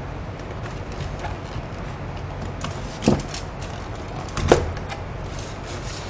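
Cardboard takeout box being pulled apart and handled: light rustling and crackling, with two sharp cardboard clacks, about three and about four and a half seconds in.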